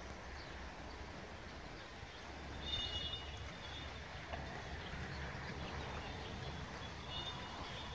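Quiet outdoor background with a steady low rumble. A few faint high chirps come about three seconds in and again near the end.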